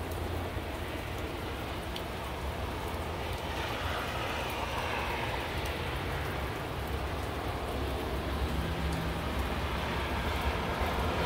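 Steady rain falling with the constant rumble and hiss of highway traffic on wet roads, scattered drips ticking through it. The hiss swells for a couple of seconds about four seconds in.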